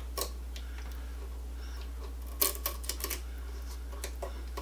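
Scattered small clicks and crackles as brittle old electrical tape is picked and pulled off wires in a switch box. There is a short cluster of clicks midway.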